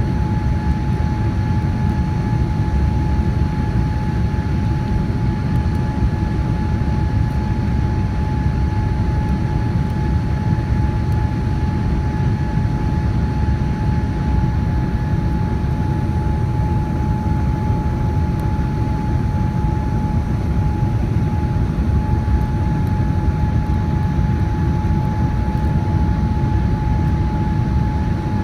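Steady cabin noise of a Boeing 787-9 Dreamliner in flight: an even low rumble of engines and airflow with a constant mid-pitched tone over it.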